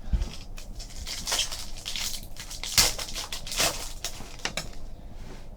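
Trading cards being handled: a run of irregular clicks, rustles and scrapes.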